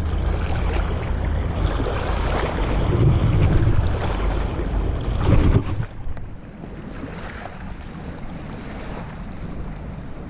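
Wind buffeting the microphone over water and boat noise, a loud low rumble that drops sharply about six seconds in to a quieter steady hiss with a few faint ticks.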